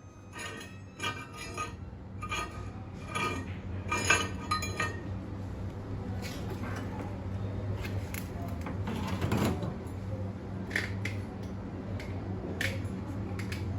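Metal clinking and knocking as steel pieces and tools are handled in a welding booth: a quick run of sharp, ringing clinks in the first five seconds, then a few scattered lighter clicks over a steady low hum.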